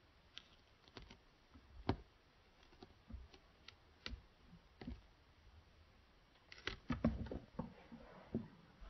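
Faint scattered clicks and taps from metal feeding tweezers and a clear plastic tarantula enclosure being handled, with a quick flurry of louder knocks and rustling about seven seconds in.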